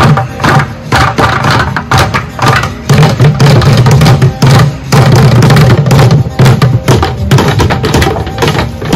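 Music driven by percussion: rapid, sharp drum hits over a steady low bass line.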